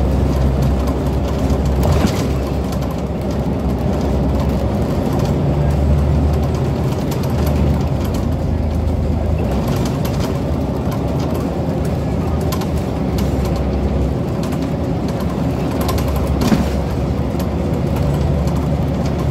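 Scania CN94UB Omnicity single-deck bus's rear-mounted diesel engine running under way, heard from inside the saloon as a steady low drone that grows stronger and weaker several times. A few short knocks and rattles come from the bus body, the clearest near the end.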